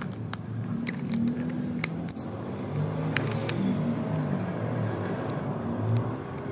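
Sharp plastic clicks and taps as a hexagonal blind-box capsule is pried open and its plastic tiles are handled, about half a dozen over a few seconds, over background music with low notes.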